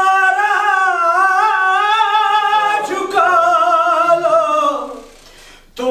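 A man singing a salaam, an Urdu devotional lament, unaccompanied, in two long held phrases with a wavering pitch; the second phrase ends about five seconds in.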